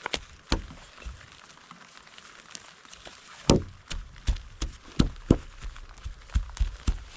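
An irregular series of sharp knocks and thuds. The loudest comes about halfway through, then a quick run of knocks at about three a second.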